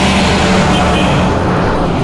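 Motor vehicles of the race convoy passing along the road, engines running with a steady low hum.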